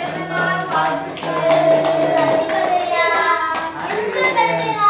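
Family voices singing a song together, a child's voice among them, with hands clapping along.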